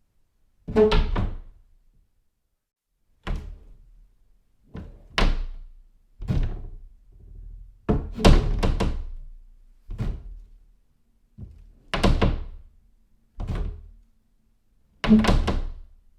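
A series of doors being shut one after another, about ten in all. Each is a sudden thump with a short ringing decay, and there is silence between them. Around eight seconds in, several closes come close together.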